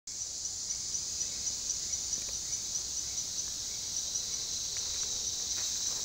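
Tropical rainforest insect chorus: a steady high-pitched buzz with a faint chirp repeating about four times a second.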